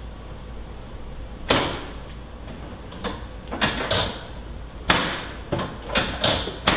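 Sharp knocks and thuds from a chiropractic adjustment on a treatment table, as the patient lies face down. The loudest comes about a second and a half in and another near five seconds, with several smaller knocks between and after.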